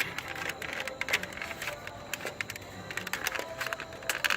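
Hard plastic parts of a model jet kit clicking and tapping together as a piece is pressed into place: a string of irregular light clicks.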